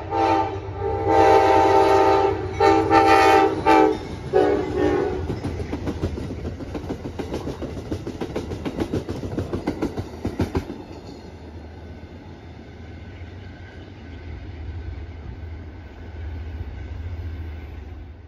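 Amtrak passenger train sounding its multi-chime horn in several blasts at a grade crossing, then its wheels clicking rapidly over the rail joints as the cars pass close by. After about ten seconds this gives way to a much quieter low rumble.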